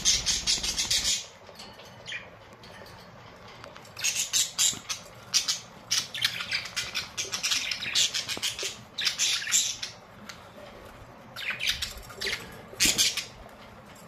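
Budgerigars chattering and squawking in bursts: a short burst at the start, a long stretch of rapid chatter from about four to ten seconds in, and a few short squawks near the end.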